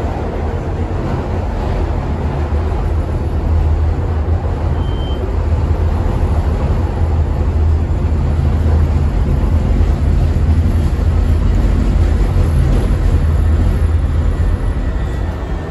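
CTA 2600-series rapid transit car running at speed, heard from on board: a steady low rumble of wheels on rail. The level builds over the first few seconds and eases off near the end.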